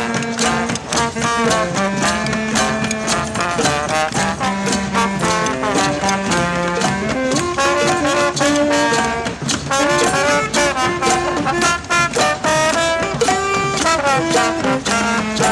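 Music: an instrumental passage led by brass horns, with moving melody lines over a steady drum beat.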